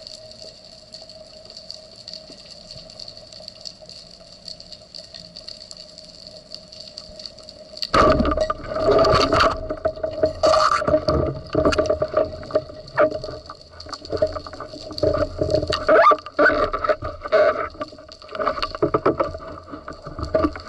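Water sloshing and gurgling, which jumps from quiet to loud and busy about eight seconds in, with many short irregular clicks and swells.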